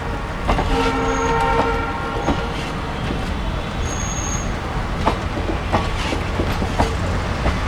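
Diesel locomotive horn sounding one short blast of a bit over a second, just after another blast, over the low rumble of a passing diesel-hauled train. A few sharp clacks follow as the wheels cross rail joints.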